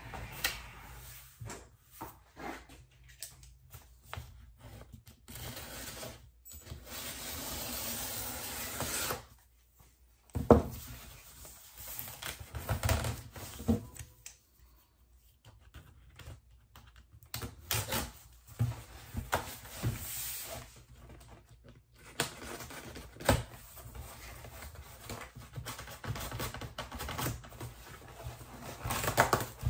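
Corrugated cardboard mailer being opened by hand: the cardboard and its tape rubbing, scraping and tearing, with scattered taps and knocks and one sharp knock about ten seconds in.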